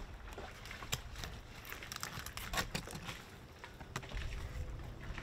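Scattered soft taps and knocks as a yellowtail snapper is turned over on a plastic cooler lid and a fillet knife cuts along its back, over a low outdoor rumble that grows about four seconds in.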